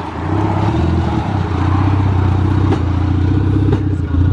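Mitsubishi Lancer Evolution V's turbocharged four-cylinder engine running with a steady low rumble as the car rolls slowly at low speed, with a couple of light clicks about halfway through.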